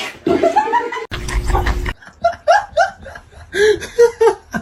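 A person laughing in short repeated bursts, with a brief low rumble about a second in.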